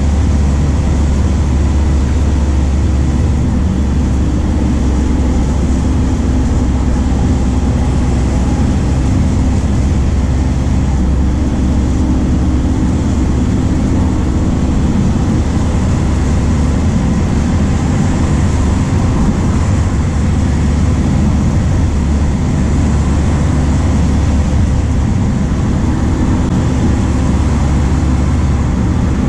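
MAN D0834 four-cylinder diesel engine of a Volkswagen 17.230 OD bus running on the move, a loud steady drone whose pitch shifts a few times as the revs change.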